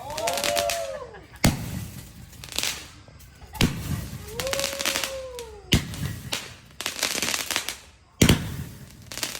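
Fireworks going off: four loud bangs about two seconds apart, each followed by a spell of crackling.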